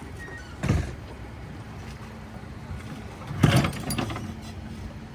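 Boat-ramp noise: a low, steady engine hum from trucks and boats launching, broken by two sharp clunks. The first is a single knock about a second in; the second, a louder clatter of several knocks, comes a little past the middle.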